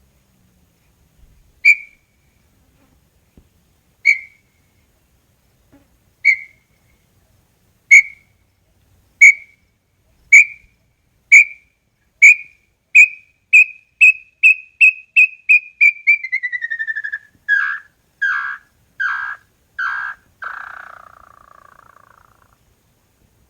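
Small-billed tinamou (inhambu-chororó) singing one full song. Clear whistled notes come about two seconds apart at first, then speed up into a rapid series that slides down in pitch. The song ends with four lower notes and a fading trail.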